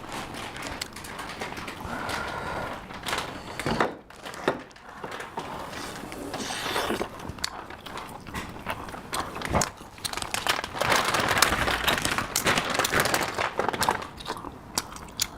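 Irregular clicks, taps and crinkling from objects being handled close up, with no steady tone.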